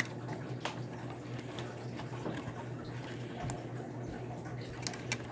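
A few light clicks and taps of small laptop parts being handled during the reassembly of an iBook G4, over a steady low hum.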